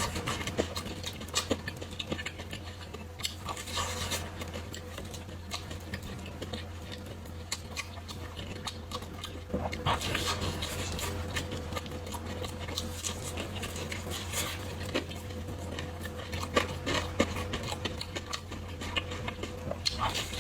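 Close-miked eating sounds: biting and chewing a meal of crispy fried chicken cutlet and fire noodles, with many sharp crunchy clicks and louder bites every few seconds.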